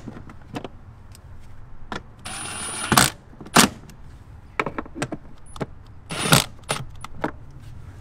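A cordless power tool's motor runs briefly, driving 8mm bolts into a plastic cabin filter housing: one short whir about two and a half seconds in and a brief one near six seconds in. Between them come sharp metallic clicks and knocks from the socket and bolts against the plastic.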